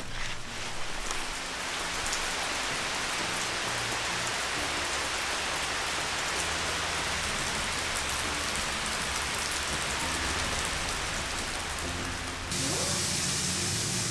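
Steady rain falling, an even hiss of raindrops on the ground. About twelve seconds in it gives way abruptly to a brighter, higher hiss.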